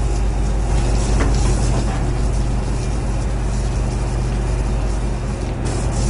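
Ship's diesel engines running with a steady low rumble.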